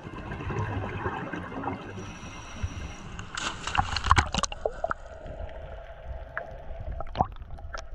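Seawater sloshing and gurgling against an action camera at the waterline, half under the surface, with a cluster of sharp splashes and knocks about three and a half to four and a half seconds in.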